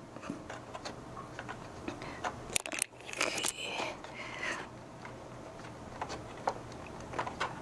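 Hands pulling the plastic pre-amp-to-power-amp jumper plugs out of the rear sockets of an NAD 3020 amplifier: scattered clicks, scrapes and rustling of plugs and cables being handled.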